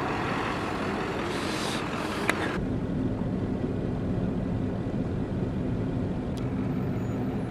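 Outdoor vehicle and traffic noise. About two and a half seconds in, it cuts suddenly to the steady low rumble of engine and road noise heard inside a moving van's cabin.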